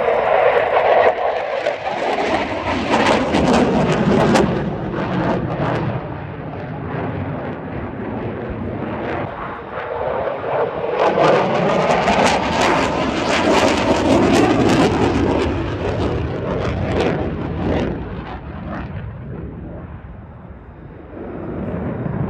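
Saab JAS 39 Gripen fighter's single jet engine at display power, a loud crackling jet roar that twice swells and drops in pitch as the jet passes, fading near the end.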